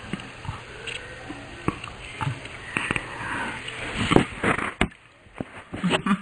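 Burps played back in slow motion: several short, low, irregular sounds with sharp clicks between them.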